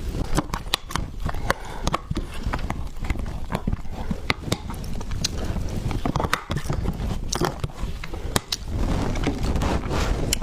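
Close-miked chewing of a soft tiger skin cake roll: wet mouth clicks and smacks, several a second, over a low hum.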